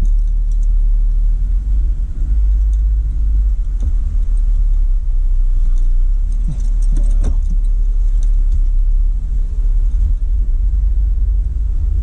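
Steady low road rumble inside a moving car's cabin, with a few light rattles and clicks about halfway through.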